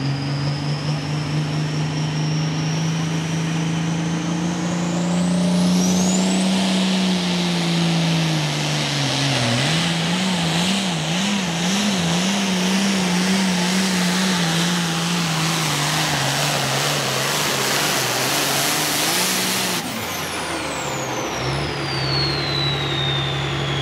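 Super Pro Farm pulling tractor's diesel engine making a pull. A high whine climbs over the first six seconds as the engine comes up to full power, and it runs hard under load with the pitch wavering for a few seconds. The throttle is cut about twenty seconds in, and a high whine falls away as it drops back toward idle.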